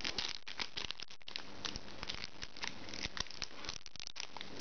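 Foil Pokémon booster pack wrapper crinkling and crackling under the fingers as it is handled and worked open: a dense, irregular run of small crackles.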